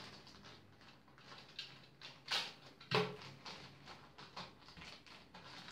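Clear plastic packaging crinkling and rustling in short, irregular bursts as a bicycle chain wear gauge is pulled out of its bag, with a light knock about three seconds in.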